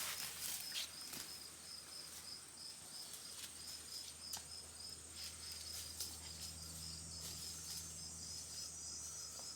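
An insect chirping in a steady rhythm of short, high pulses, about three a second, with a few faint clicks and taps.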